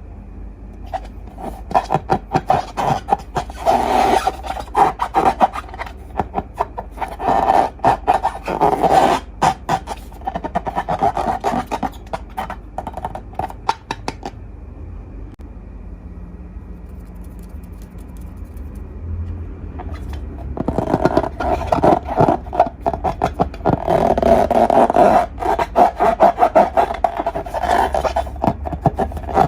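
Hands working sticky slime: dense crackling, clicking and squishing in two long bouts, with a quieter pause in the middle.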